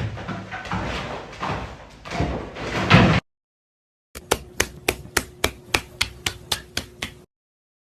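Irregular clattering and knocking, then after a short break a rapid, even series of sharp knocks, about four a second.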